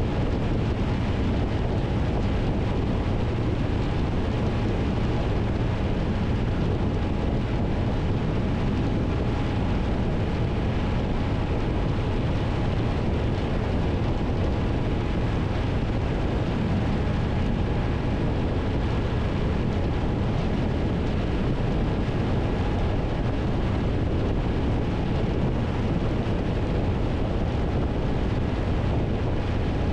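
Wind rushing over the microphone with steady engine and road noise from a Triumph Tiger 1200's three-cylinder engine cruising at constant highway speed.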